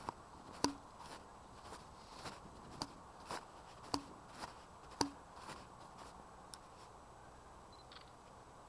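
Faint footsteps of someone walking, sharp steps about two a second that thin out after about five seconds.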